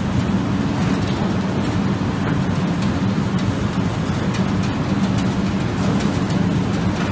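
A potato dry dirt eliminator machine running with a steady low mechanical rumble and hum, while loose soil and debris drop into a wooden bin with faint scattered ticks.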